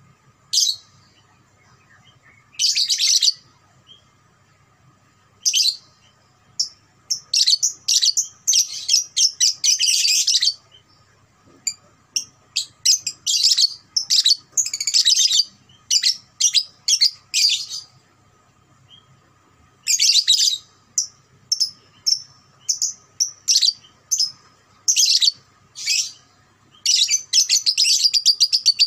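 A young Fischer's lovebird singing in bursts of rapid, high chattering trills, with short pauses between them. Longer unbroken runs come around a third of the way in and again near the end. This is the long chattering song that Indonesian keepers call ngekek.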